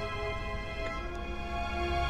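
Background music with held, steady chords over a low drone.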